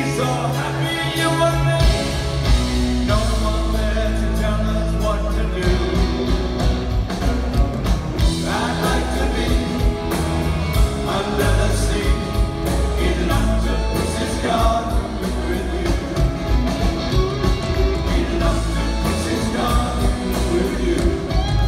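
Rock-and-roll song with a singer over a full band: bass, drums and guitar playing steadily.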